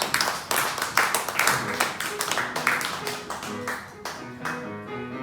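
Audience clapping that thins out over the first few seconds, as instrumental accompaniment comes in with a run of separate held notes.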